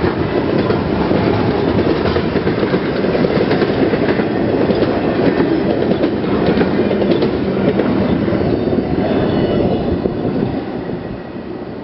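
Freight train cars rolling past on the rails, with steady wheel clicks over the rail joints; the sound dies down about ten seconds in as the end of the train goes by.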